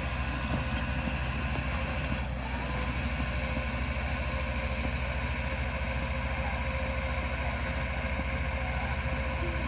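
Car engine running steadily at an even speed, with no revving.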